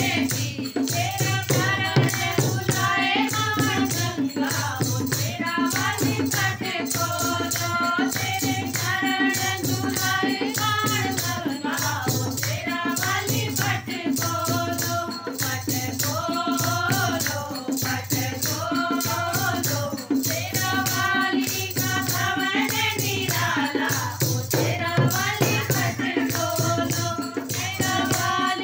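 Group of women singing a Hindu devotional bhajan in unison, accompanied by a dholak hand drum, the jingles of a chimta and hand clapping in a steady rhythm.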